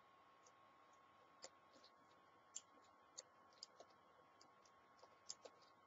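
Near silence broken by faint, irregular small clicks: a multi-tool's screwdriver turning a screw out of the cover of an Acer Revo 3700 mini PC.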